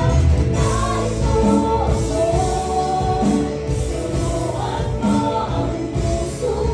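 Live praise and worship music: a group of singers singing together into microphones over a live band with drums and electric guitar, amplified through PA speakers.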